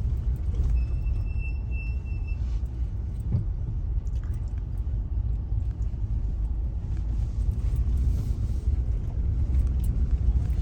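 Steady low rumble of a car's road noise heard from inside the cabin as it rolls slowly over a rough, unfinished road. A faint thin high whine sounds for a second or so near the start.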